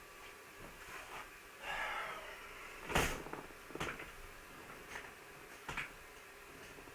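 A few sharp knocks and clicks over a steady hiss, the loudest about three seconds in, after a brief rustle just before two seconds in.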